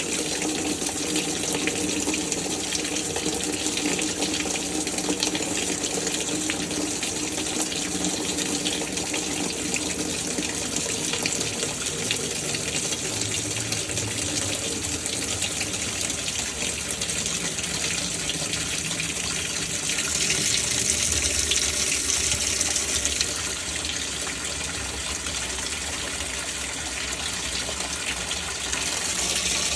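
Water rushing into the tub of a Maytag Centennial MVWC360AW top-load washer as it fills during its automatic diagnostic test; a steady rush that swells louder for a few seconds about two-thirds of the way in and again near the end.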